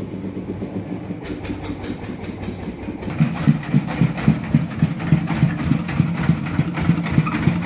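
A homemade three-wheeled công nông cart's single-cylinder diesel engine chugging as it drives up, with even low beats about four a second. It starts about three seconds in; before that there is only a steady low engine hum in the background.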